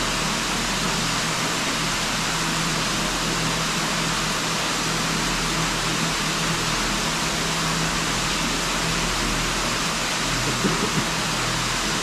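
A waterfall pouring into a pool: a steady, even rush of falling water.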